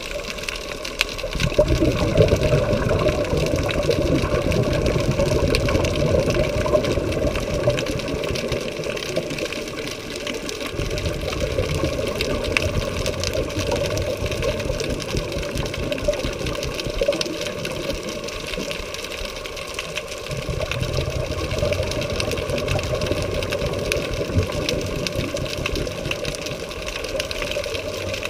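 Muffled underwater noise heard through a camera's waterproof housing: a scuba diver's exhaled bubbles and regulator rumbling in long stretches, easing off briefly around ten seconds in and again around nineteen.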